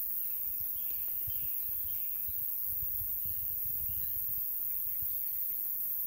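Crickets chirring steadily at a very high pitch, with short bird chirps now and then over it and a low rumble around the middle.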